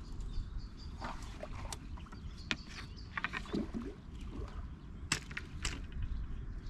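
Outdoor ambience at the water's edge: a steady low rumble with scattered sharp clicks and taps, the loudest a little after five seconds in.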